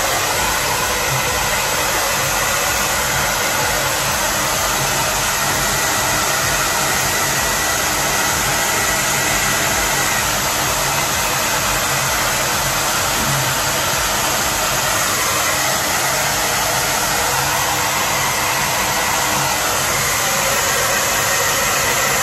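Handheld hair dryer blowing steadily, an even rushing noise that holds without a break.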